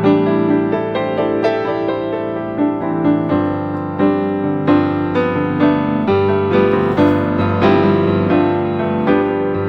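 Background piano music, slow notes struck about once a second over held chords.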